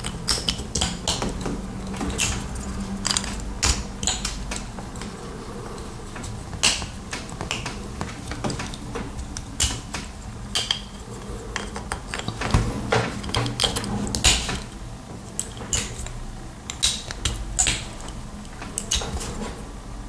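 Small plastic and metal parts of an inline RJ45 Ethernet coupler being handled: irregular sharp clicks and taps, sometimes several in quick succession, over a faint low hum.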